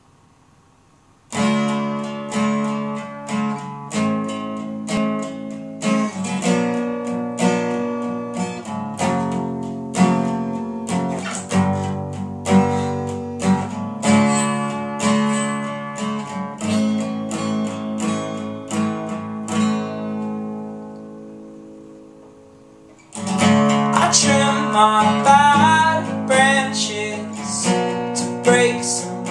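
Solo acoustic guitar playing a picked intro with notes ringing over a steady low bass, fading out about twenty seconds in. Then the guitar comes back louder, strummed, and a man starts singing over it.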